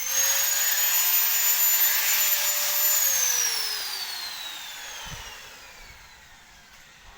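A high-speed machine whine, held steady for about three seconds, then winding down, falling in pitch and fading over the next four seconds.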